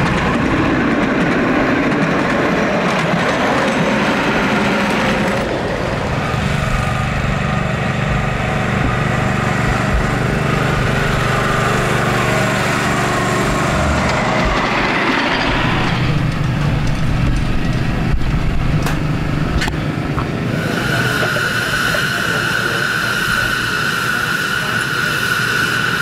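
Ridable-scale miniature trains running along the track, with a steady low engine hum under rumbling cars and background voices. Near the end, a steady high-pitched tone sets in and holds.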